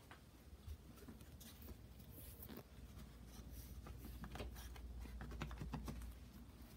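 Faint scratching and rustling: a small dog pawing and tugging at a bundle of cloth on carpet, digging for a chew treat tied inside.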